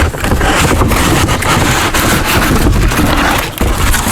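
Packaging being handled during unboxing: continuous rustling and scraping with many small crackles and knocks, heavy in the low end.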